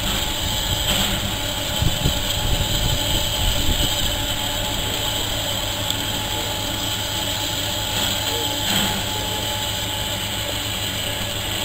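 GER Class Y14 (LNER J15) 0-6-0 steam locomotive standing at rest, giving off a steady hiss of steam.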